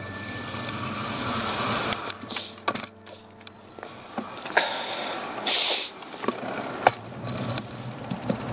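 Road bike rolling slowly and coasting, heard from a handlebar-mounted camera: tyre and road noise with scattered clicks and rattles, and a brief hiss about five and a half seconds in.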